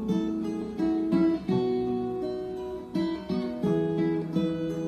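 Background music on acoustic guitar, with plucked notes following one after another.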